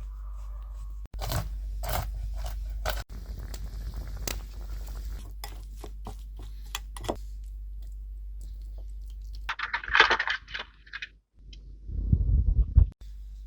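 Food-preparation handling sounds in short cut-together clips: clicks, scraping and crunching, with a denser scraping burst about ten seconds in and a heavier low rumbling handling sound near the end, over a steady low hum.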